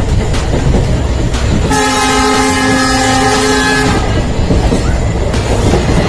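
Indian Railways passenger train running with a steady rumble and regular wheel clacks over rail joints, about one a second. About two seconds in, the train horn sounds one steady blast lasting about two seconds.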